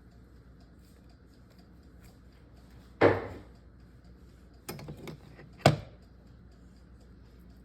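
Kitchen containers being handled on a counter: a clunk about three seconds in, a short run of small clicks and rattles near five seconds, then another sharp knock just before six seconds.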